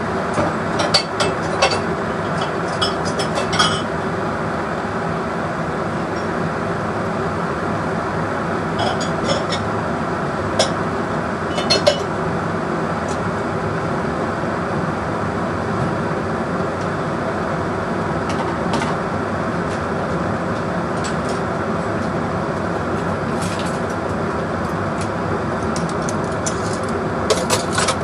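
A steady mechanical hum throughout, with scattered clinks and knocks of kitchen utensils on the counter in small clusters.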